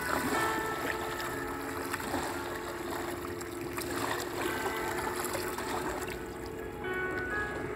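Small waves lapping and washing over a shallow sandy riverbank, with soft background music of sustained notes.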